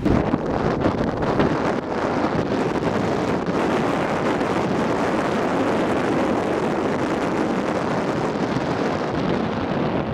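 Strong mistral wind buffeting the microphone on a ferry's open deck, over the steady rush of white water churned up along the hull and in the wake in a rough sea.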